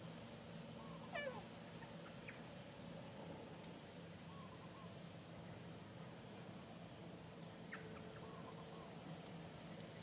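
Faint outdoor ambience: a steady high whine under short animal calls that repeat every couple of seconds, with one falling squeal about a second in and a few light clicks.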